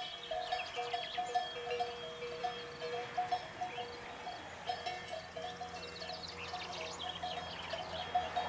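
Livestock bells clinking irregularly and continuously, many short ringing notes overlapping.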